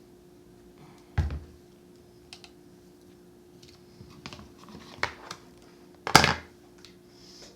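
A scatter of clicks and knocks from objects being handled, with two louder knocks about a second in and about six seconds in, over a faint steady hum.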